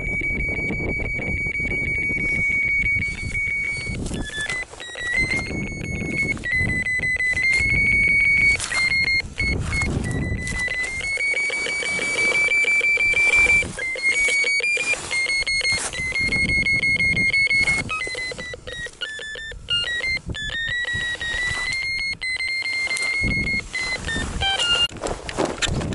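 Handheld ferret locator receiver giving a continuous high electronic tone over fast ticking. The pitch wavers and steps up and down as it is held over the ground, searching for a collared ferret underground.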